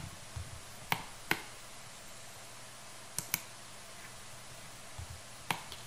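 Sparse clicks of a computer mouse and keyboard over a faint steady room hum: two quick pairs of clicks, then a single click near the end.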